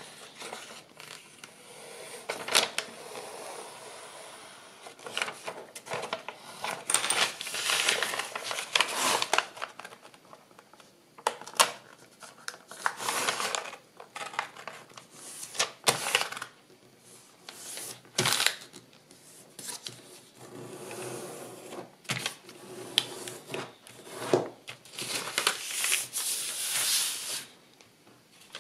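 Brown kraft paper being folded and its creases pressed down by hand on a cutting mat: irregular rustling and crackling with sharp clicks and taps.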